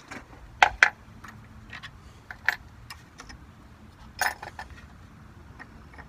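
Scattered small metallic clicks and clinks as the large nut and washer are worked off the threaded stud of a truck battery disconnect switch by hand, with a small cluster of clinks about four seconds in.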